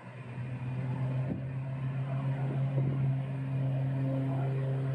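Twin turboprop engines of a Beechcraft Super King Air 200 at high power as it accelerates down the runway for takeoff: a steady low propeller drone with a higher engine tone above it. It grows louder over the first second or so, then holds.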